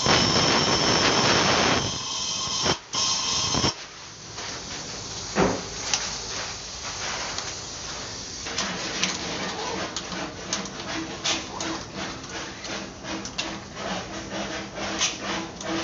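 Compressed-air blow gun hissing as it blows dust out of the air compressor's intake filter element, with one short break, then cutting off about four seconds in. After that come quieter small clicks and taps.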